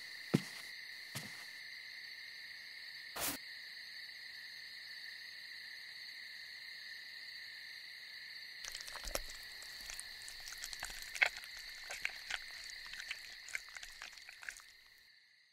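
Night-forest ambience: a steady, high-pitched chorus of night creatures. Over it come a couple of soft footsteps at the start, a click about three seconds in, and scattered crackling and rustling in the second half. The chorus fades out near the end.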